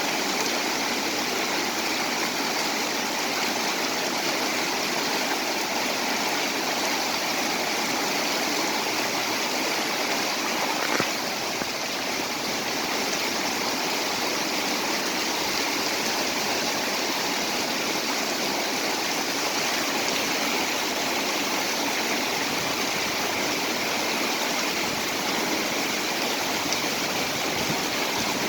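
Heavy rain falling steadily, an even hiss of water with no let-up. One brief knock sounds about eleven seconds in.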